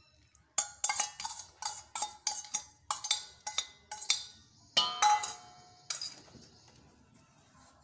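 Steel spoon clinking against a small steel bowl as the heated oil is scraped out over the mango pieces, quick ringing clinks about four a second, then a louder ringing clang of steel on steel about five seconds in.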